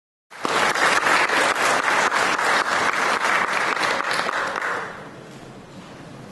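Audience applauding, starting abruptly about half a second in and dying away after about four and a half seconds to faint room noise.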